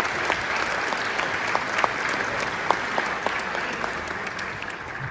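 Audience applauding, a dense patter of clapping with a few sharper single claps standing out, easing off slightly near the end.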